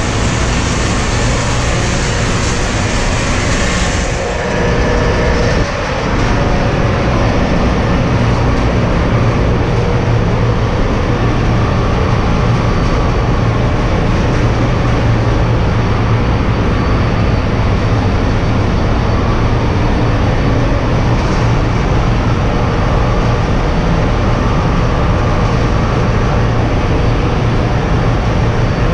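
Loud, steady machinery din of a container ship's engine room: a deep hum under an even hiss. The hiss drops a little about four seconds in, with a brief dip soon after.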